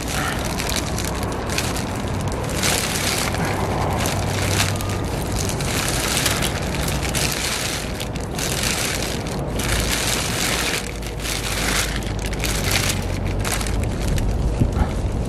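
Thin 3 mil plastic sheeting crinkling and flapping in gusty wind, in irregular surges, with wind rumbling on the microphone.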